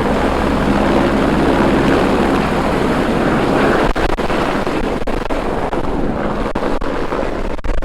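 Helicopter running close by: a steady, loud drone of rotor and engine with a low hum beneath it.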